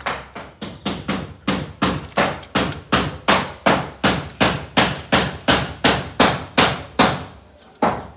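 Hand hammer striking in a steady run of sharp blows, about three a second, with a short break near the end.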